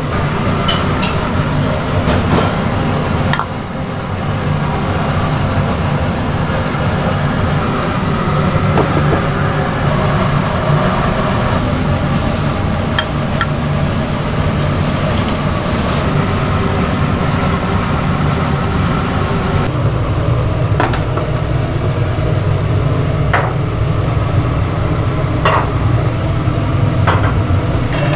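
Steady roar of a restaurant kitchen's gas burners and ventilation around a large boiling soup cauldron, with scattered sharp clinks of earthenware bowls and a metal ladle. The sound changes about two-thirds of the way in, where the upper part of the roar thins out.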